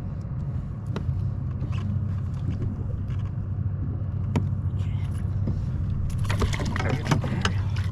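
Metallic clicking and jangling of fishing gear (hook, pliers) being handled while a salmon is unhooked in a kayak, a few single clicks and then a dense run of rattling near the end. A steady low rumble runs underneath.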